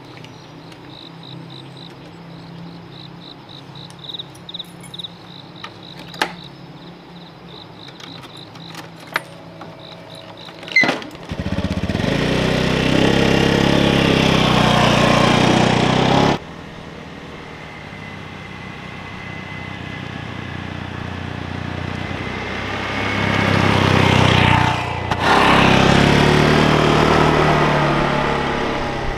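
Insects chirping, then about eleven seconds in a small motorbike engine starts up suddenly and runs loud, cutting off abruptly about five seconds later; the engine sound then builds again and runs loud near the end.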